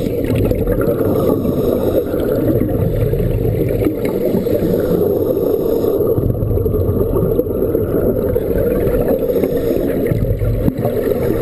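Steady, muffled rush of water recorded by a camera underwater during a scuba dive on a wreck.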